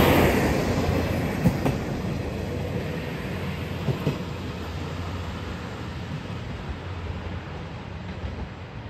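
JR Shikoku 1200-series diesel railcar pulling away, its engine and wheel rumble fading steadily as it recedes. There are a few sharp clicks of wheels over rail joints, a pair about one and a half seconds in and another pair about four seconds in.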